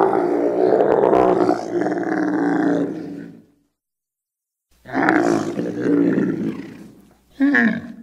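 Muttaburrasaurus sound effect: three deep animal-like calls. A long one of about three and a half seconds, then after a short silence a second of about two and a half seconds, and a brief call falling in pitch near the end.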